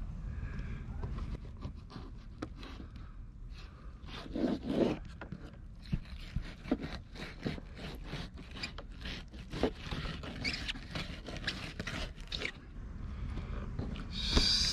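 Fillet knife slicing a fish fillet off the backbone and through the rib bones: a run of short, quick scrapes and clicks, with a couple of duller knocks about four and a half seconds in.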